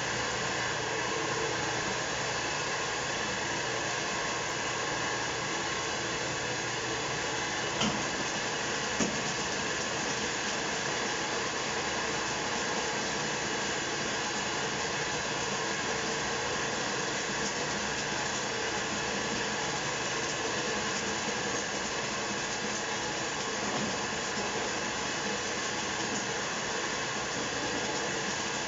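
A commercial stainless-steel popcorn machine running with a steady, even whir while it discharges freshly popped corn down its chute. Two brief clicks come about eight and nine seconds in.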